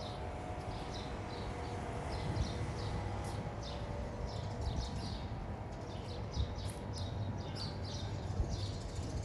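Small birds chirping in short, high notes, several a second, over a low steady rumble of outdoor background noise.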